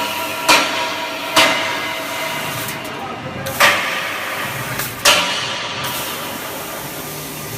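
CO2 laser cutting machine cutting stainless steel: a steady hiss of air and machinery, broken four times by a sudden loud burst that fades within a second.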